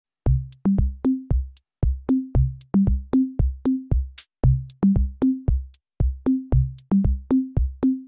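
Electronic background music: a drum-machine beat of deep, pitched kicks and sharp clicks, dropping out for a moment a few times.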